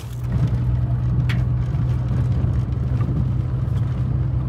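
Pickup truck driving, heard from inside the cab: a steady low engine and road hum, with one short click about a second in.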